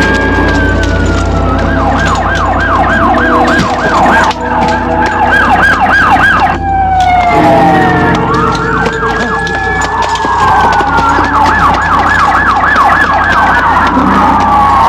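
Emergency vehicle siren, played twice over with a short break between. Each round is a slow wail that rises and falls, followed by a fast yelp at about four cycles a second. A steady low rumble runs underneath.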